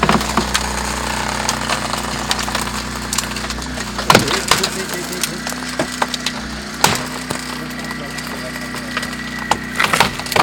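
Sharp cracks and knocks of rescue work on a car's body and broken glass, heard from inside the car, over a steady mechanical hum. The loudest cracks come about four, seven and ten seconds in.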